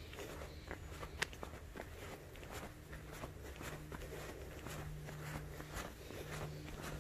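Footsteps of a person walking at a steady pace on a packed dirt forest trail.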